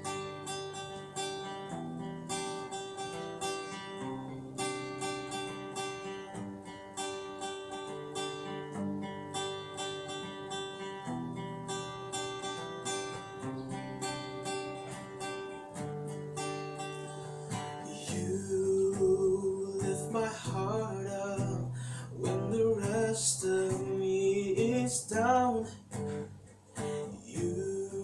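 Acoustic guitar played steadily through a song intro, sustained chords picked and strummed in an even rhythm. About two-thirds of the way through, a man's voice comes in singing over the guitar.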